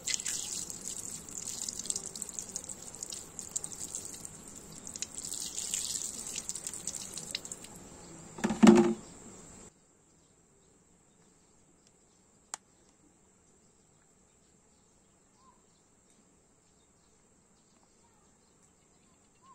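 A stream of water pouring and splashing onto a plastic earbuds case held in a hand, with a short louder burst near the end of the pouring. About ten seconds in the sound cuts off abruptly to near silence, broken only by a single faint click.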